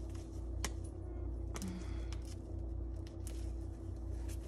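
A few sharp clicks and taps from a plastic spice bottle being handled and opened, over a steady low hum.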